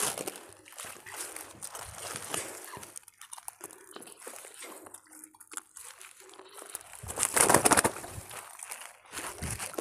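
Wet monofilament gill net being hauled in by hand and stuffed into a plastic sack: irregular rustling and crinkling of the net and sack, with water dripping and splashing off the mesh. A louder surge of rustling and splashing comes about seven seconds in.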